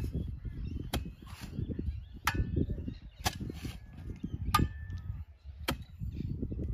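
A metal digging tool chopping into hard, stony ground while a planting hole is dug. There are five sharp strikes about once a second, some ringing briefly as the blade hits stone.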